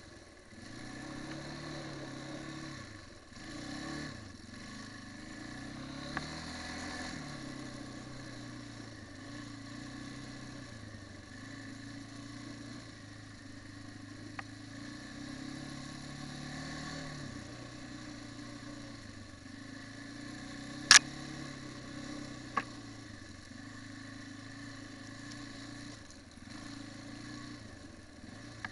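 Quad bike engine running at low speed, its pitch rising and falling as the throttle is opened and eased. A few sharp knocks cut through, the loudest about three quarters of the way in.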